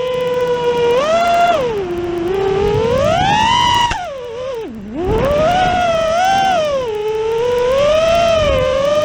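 FPV quadcopter's brushless motors whining, the pitch rising and falling with the throttle. About halfway through the throttle is cut briefly and the whine drops sharply, then it climbs back up.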